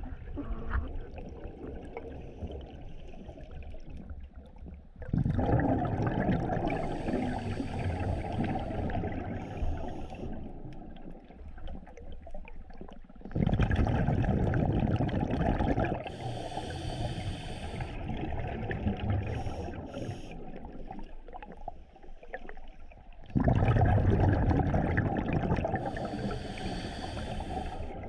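Scuba exhalation bubbles from a diver's regulator, heard underwater: three loud bubbling rushes of exhaled air, roughly eight to ten seconds apart, each lasting two to three seconds, with quieter water noise between.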